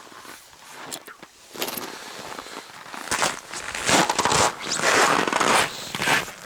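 Scraping and rustling close to the microphone in irregular bursts, louder from about three seconds in.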